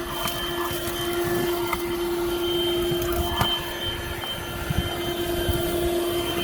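Buture handheld car vacuum running steadily with a constant motor whine, with a few scattered clicks and rattles as it is worked over the car floor. It is failing to lift the small rocks there.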